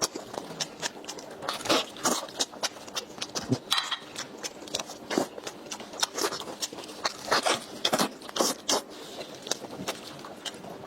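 Close-miked eating: a person chewing and biting food, giving an irregular run of crisp crunches and wet smacks.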